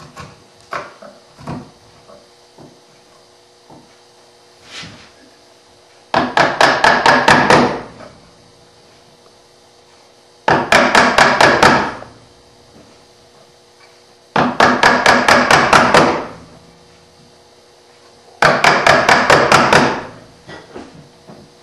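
A mallet rapidly tapping a bench chisel into hardwood to chop out the waste of a half-blind dovetail socket. There are four quick runs of strikes, each about two seconds long, with a few light knocks and scrapes of the chisel in the cut between them.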